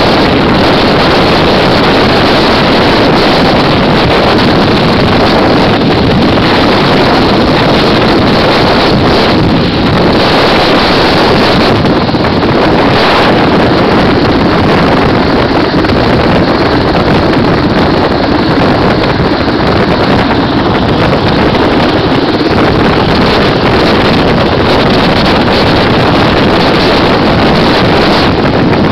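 A hovering helicopter's engine and rotor noise, loud and steady, with the rotor downwash blasting the microphone as a constant rush of wind.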